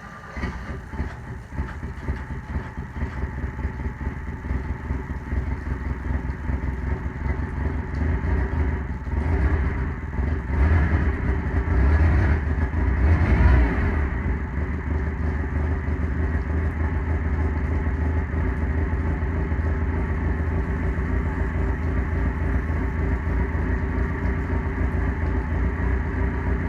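OMC 2.5 L four-cylinder marine engine running on its first start after a water pump replacement. It rises in level and revs up briefly about halfway through, then settles to a steady run.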